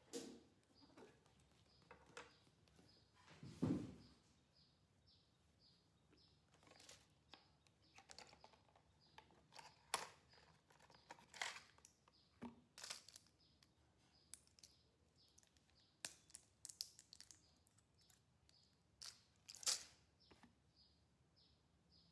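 Faint crinkling and clicking of a plastic-and-foil blister pack of tablets being handled, in short irregular bursts. A faint high chirp repeats about twice a second throughout.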